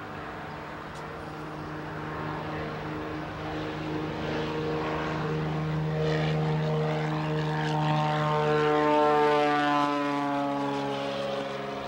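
1992 Bellanca Viking's 300 hp Continental IO-520 flat-six engine and propeller at full takeoff power on a short-field takeoff. It grows steadily louder to a peak about nine seconds in, then its pitch falls near the end as the plane passes and climbs away.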